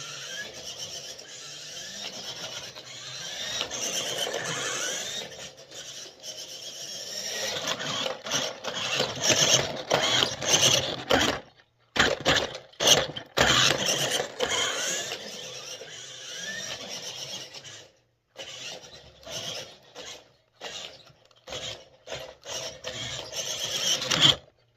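Tyco Half Traxx 9.6 V radio-controlled car driving on 3D-printed treads: its electric motor and gears whine, rising and falling in pitch, over the rasping clatter of the plastic treads. It stops briefly a few times and cuts off suddenly near the end.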